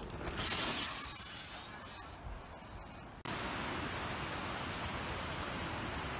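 Mountain bike on a dirt jump line: a rush of tyre and air noise about half a second in that fades away over a second or two, then from about three seconds a steady, even hiss.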